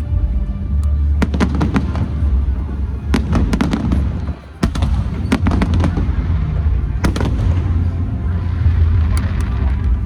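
Fireworks display: a continuous deep rumble of bursting shells, with clusters of sharp crackling pops every second or two.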